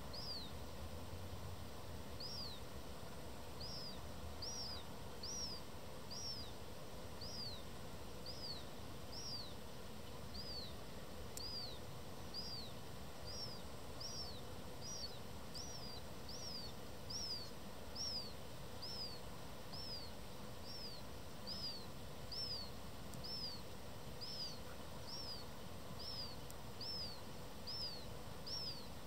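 Juvenile black-headed gull begging for food: a thin, high call that falls in pitch, repeated about once a second throughout.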